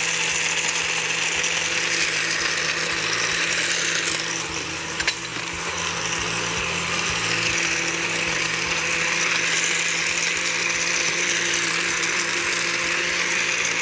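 Countertop blender running steadily, grinding chunks of coconut, ginger and spices in water. Its motor hum sits under the grinding noise. About five seconds in the sound dips briefly and there is one sharp click.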